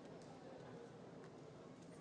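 Near silence: faint ambience of an indoor badminton hall, a low murmur with a few faint clicks between rallies.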